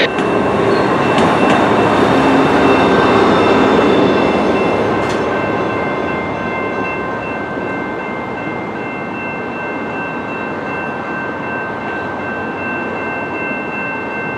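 A train rumbling past at the level crossing, loud for the first few seconds and then easing off as it moves away. A steady high-pitched tone rings over the rumble for most of the time.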